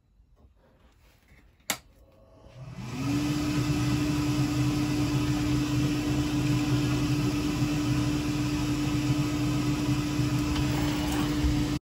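A workshop power tool's electric motor clicks on, spins up within about a second and runs steadily with a whine and hum. It stops abruptly near the end.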